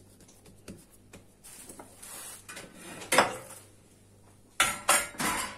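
Kitchen containers and utensils being moved and set down on a granite countertop: faint handling sounds, one sharp knock about three seconds in, then a quick run of clattering knocks near the end.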